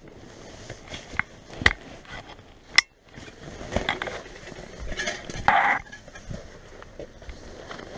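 Nylon backpack handled close to the microphone: fabric rustling and scraping, with several sharp clicks and knocks in the first few seconds and a short scraping rush a little after halfway.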